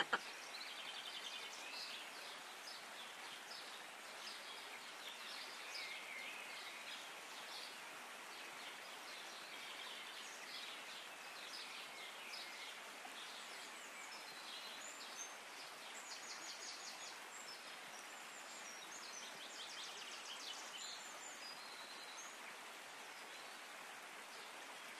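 Faint outdoor background hiss with scattered short, high-pitched chirps and quick trills, clearest about two-thirds of the way through.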